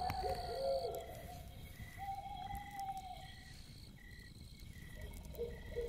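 A dog howling in long, drawn-out calls, three times. Behind the howls, night insects chirp in a steady rhythm about twice a second over a thin steady high buzz.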